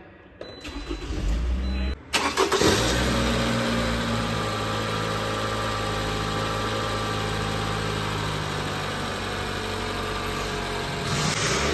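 Toyota RAV4 engine cranked by the starter for about a second and a half, catching with a brief flare, then settling into a steady idle. The engine sound swells slightly near the end.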